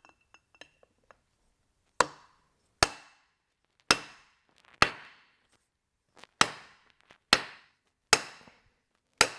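Hammer blows driving the pump's main bearing into the rear cover: eight sharp strikes about a second apart, each with a short metallic ring, after a few light taps in the first second.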